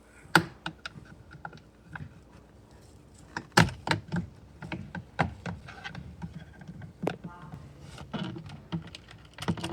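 A plastic interior trim cover on a Chevrolet Equinox being pulled off by hand, its retaining clips popping loose in a series of irregular sharp clicks and knocks. The loudest snaps come about half a second and three and a half seconds in.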